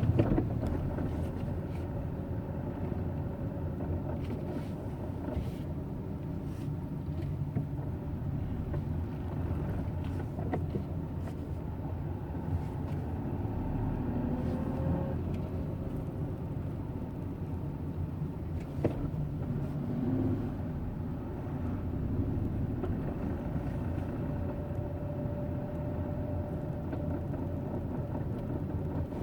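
Hyundai Eon's three-cylinder engine and drivetrain running at low rpm: a steady low rumble, with a faint tone that comes and goes a couple of times. It is the low-rpm grinding noise this car is known to have.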